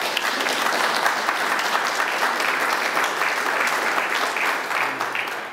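Applause: many hands clapping steadily, tailing off near the end.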